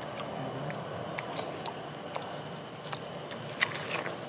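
Close eating sounds of yellow watermelon being bitten and chewed: scattered wet, crisp clicks, the sharpest about three and a half seconds in.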